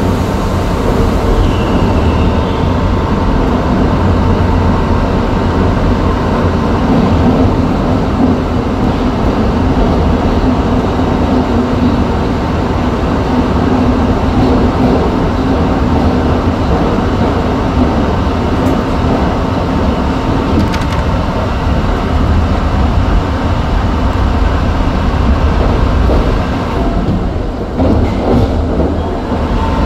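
New York City subway 1 train running through a tunnel, heard from inside the front car. The wheels rumble steadily on the rails and a steady whining tone sits over the rumble. The rumble dips briefly near the end.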